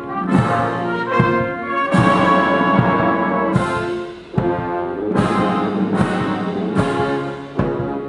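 Military brass band playing a slow funeral march: sustained, mournful brass chords marked by a regular drum stroke about every three-quarters of a second.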